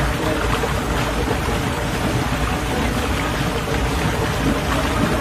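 Whirlpool spa jets churning the water: a steady rushing, bubbling noise.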